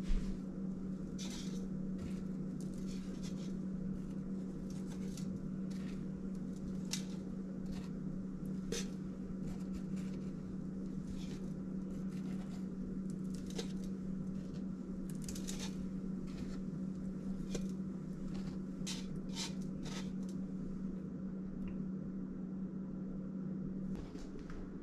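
Light taps and soft knocks of pandesal dough rolls being handled and set one by one into an air fryer's nonstick bowl, over a steady low hum that stops near the end.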